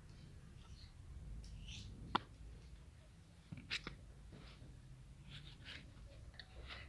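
A few faint clicks and taps from small objects being handled and set down on a concrete ledge: a sharp click about two seconds in, then two more a little past the middle, over quiet background noise.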